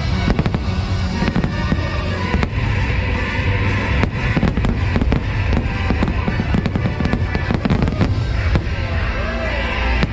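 Fireworks shells bursting in a rapid string of sharp bangs, thickest in the middle, over the show's music soundtrack.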